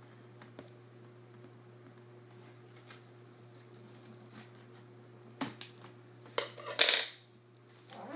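Scissors cutting tape on a cardboard box: faint small clicks at first, then a few sharp snips and a short scraping cut about five to seven seconds in, over a steady low background hum.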